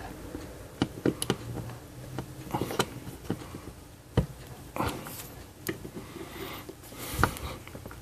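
Small clicks and scrapes of a screwdriver pushing a metal contact into a plastic Anderson Powerpole connector housing. Several short, sharp clicks are spread through the sound, the loudest about seven seconds in, as the contact is forced in until it seats with a click.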